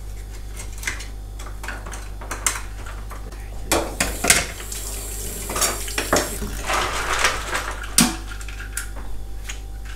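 Scallops being shucked by hand: scattered sharp clicks and clatters of scallop shells knocking against a metal tray, with a knife and spoon scraping on shell.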